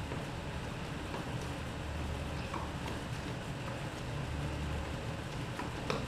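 Tennis rally heard from the stands: faint pops of the ball off the rackets a few times, with a sharper pop near the end, over a steady low rumble.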